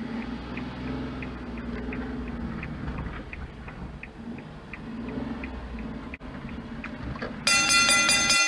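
Suzuki Every van's engine running at low speed, a steady low drone, with a small regular tick about twice a second typical of a turn-signal indicator. About a second before the end a loud bright chime-like music sting cuts in over it.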